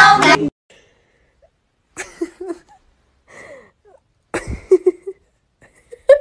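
Singing with music cuts off about half a second in. After a pause, short breathy vocal sounds come in scattered bursts, with a bump about four and a half seconds in.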